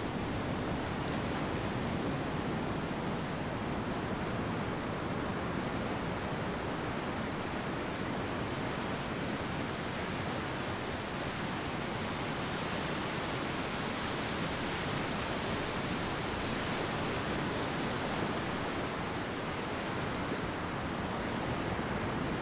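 Ocean surf washing onto a beach: a steady, even rush of breaking-wave noise that swells slightly about three-quarters of the way through.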